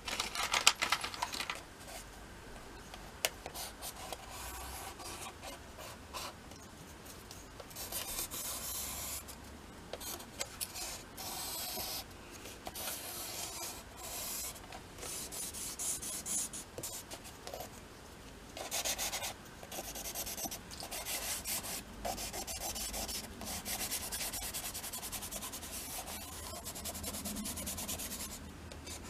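Repeated scratchy strokes of a dry drawing stick on sketchbook paper, in short bursts of a second or two, mixed with hands rubbing the paper. A cluster of sharp clicks sounds in the first second.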